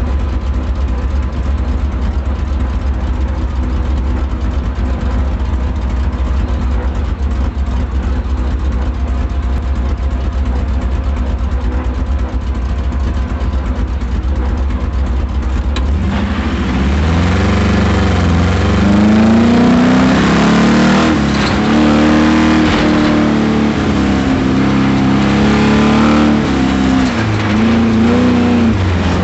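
Camaro engine idling steadily, then launched at full throttle about sixteen seconds in, revving up and down through the autocross course. The engine has spun a bearing, which the driver first took for a miss.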